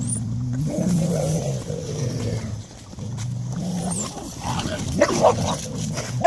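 Several dogs growling low and continuously while crowding a shared food tub, food-guarding growls, with sharp yelps and snaps breaking in from about four and a half seconds in.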